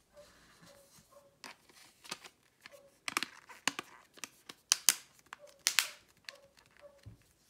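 Plastic back cover of a Cubot J3 Pro smartphone being pressed and snapped back onto the phone: a run of sharp clicks as its clips catch around the edges, loudest about three to six seconds in.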